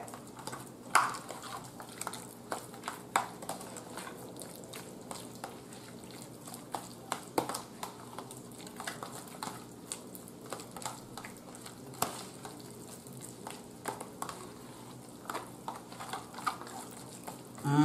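Fork stirring and mashing potato salad in a plastic container: irregular soft clicks and scrapes of the fork against the plastic, with wet squishing of the mixture.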